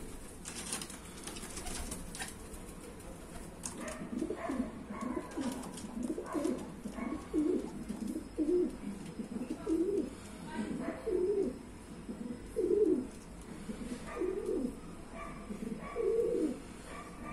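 A bird calling over and over, low-pitched calls that rise and fall, repeated about once a second from about four seconds in. Faint scratching of a pen on paper in the first couple of seconds.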